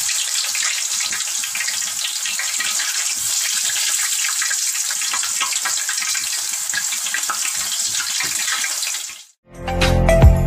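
Raw potato slices deep-frying in hot oil in a steel kadai: a steady sizzle with fine crackling. It cuts off suddenly about nine seconds in, and background music starts.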